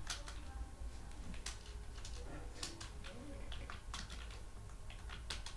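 Computer keyboard being typed on: scattered, irregular keystrokes over a low steady hum.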